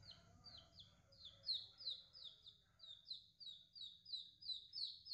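Baby chick peeping over and over, about three high peeps a second, each sliding down in pitch.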